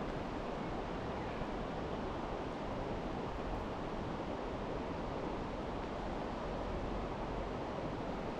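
Steady rushing of flowing river water, an even hiss with no breaks.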